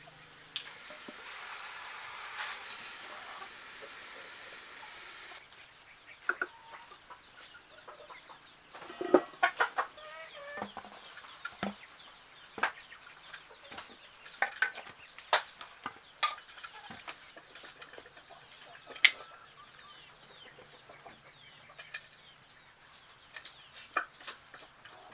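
Chickens clucking in short, scattered calls. A steady hiss in the first five seconds stops abruptly.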